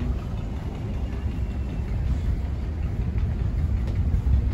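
Houseboat's engine running with a steady low rumble as the boat moves along.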